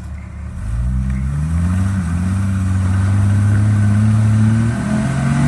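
Off-road rig's engine revving up and held at high revs under load on a rock-crawling obstacle, easing off briefly near the end and then climbing again.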